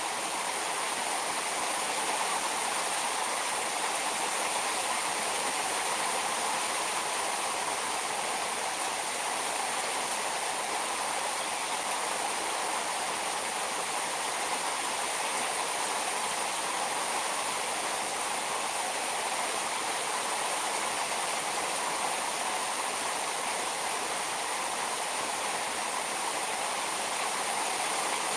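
Heavy rain falling in a steady downpour onto a mesh shade net and a parked car, with water streaming off the net's edge. The rain is an even, unbroken hiss throughout.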